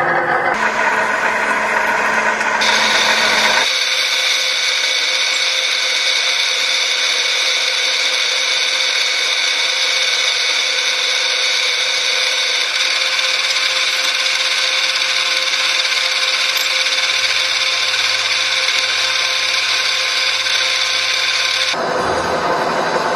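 Metal cutting on a CNC boring mill: the spindle turns a cutter through steel under coolant, giving a steady, loud, high-pitched cutting noise over a constant machine hum. The sound changes abruptly a few times, the last change near the end.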